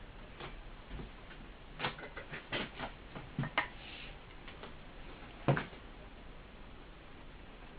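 Handling noise from work on a loudspeaker woofer: a run of small clicks and taps about two to four seconds in, then one louder knock about five and a half seconds in.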